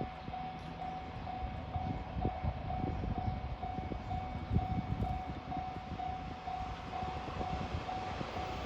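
Japanese level-crossing warning bell ringing steadily at about two rings a second, the signal that a train is approaching, over a low rumble.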